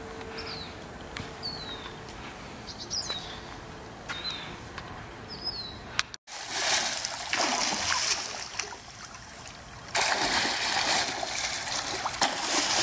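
Small birds chirping with short falling whistles, about one a second; then, after a cut, water splashing in a swimming pool as a person swims, in a first rush of splashing and then a louder, steadier stretch from about ten seconds in.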